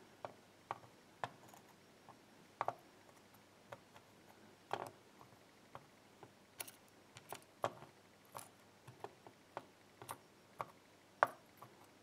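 Faint, irregular clicks of metal tweezers and small steel lock springs tapping on a plastic pinning tray as the springs are picked up and set in place one by one.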